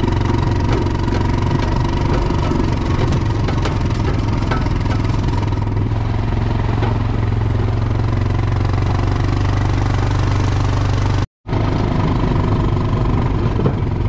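Quad bike (ATV) engine running steadily. The sound drops out for a moment about eleven seconds in, then the engine comes back, a little less even.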